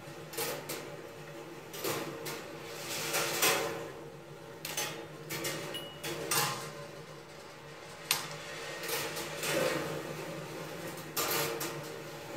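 Glass marbles rolling and clattering along the stainless-steel wire tracks of a rolling ball sculpture, with irregular clicks and bunches of clatter as they drop between rails and swirl in the wire funnel, over a steady low hum.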